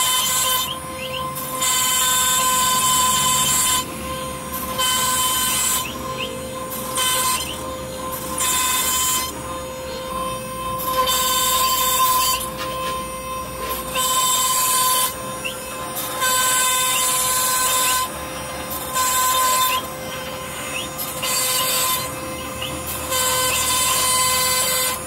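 CNC router spindle running with a steady high whine while its end mill cuts a fretwork pattern into a wooden panel. A loud hissing cutting noise swells and drops every second or two.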